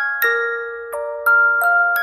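Bell-like chime melody, glockenspiel-like: chords of several notes struck one after another, each ringing and fading before the next.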